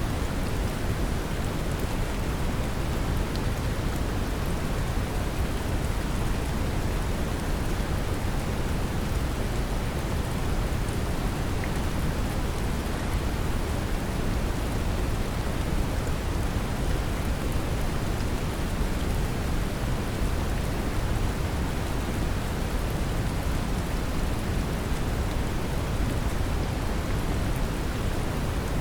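Brown noise mixed with steady rain: a deep, even rumble of noise with the patter of rain on top, unchanging throughout.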